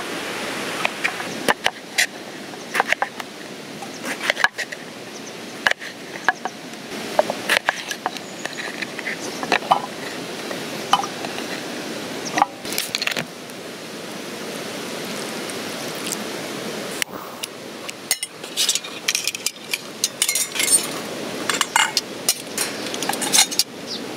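Scattered clinks and knocks of a metal camp pot and cooking gear being handled as eggplant pieces go into the pot and the solid-fuel stove is set up, over a steady background hiss. The clinks come thicker in the last few seconds.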